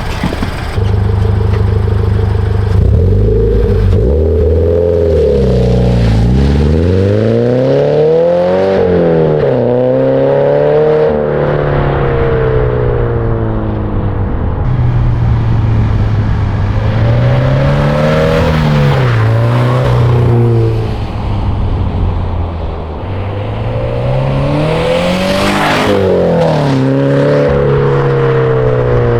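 Exhaust of a 2013 Subaru BRZ's flat-four engine through a GReddy Evo GT cat-back. The revs climb and fall back several times between steadier stretches. The deep note has no leak, as the joint is now sealed with a proper 2.5 to 3 inch adapter and a donut gasket.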